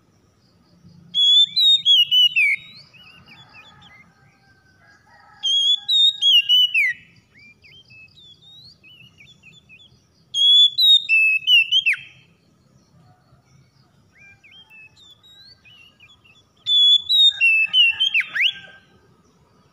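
Oriental magpie-robin singing: four loud whistled phrases, each about a second and a half long and several seconds apart, made of clear high notes that slur downward, with quieter warbling between the phrases.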